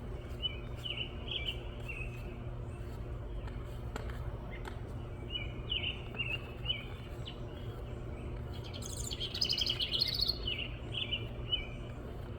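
Wren singing in short, chirpy phrases, with a louder, buzzy rapid trill about nine seconds in. A steady low hum runs underneath.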